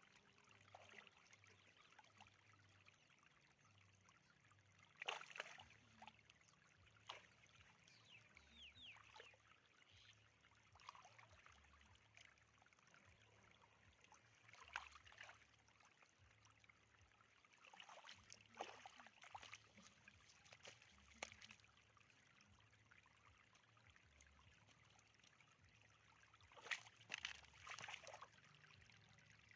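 Faint splashing and trickling of shallow water, in short splashes every few seconds over a very quiet background.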